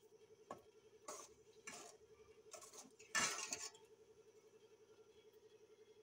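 Metal slotted spoon stirring in a metal cooking pot of curry: a few short clinks and scrapes against the pot, the loudest scrape a little after three seconds in, then only a faint steady hum.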